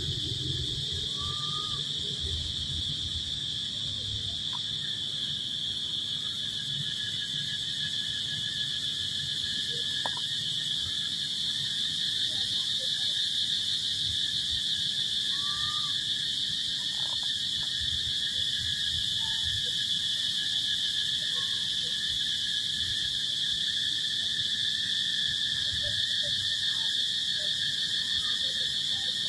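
Steady, high-pitched chorus of forest insects droning without a break, with a few faint short chirps over it.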